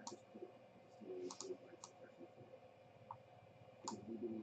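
Faint, scattered clicks and taps, about five or six of them spread irregularly, over a low steady background hum.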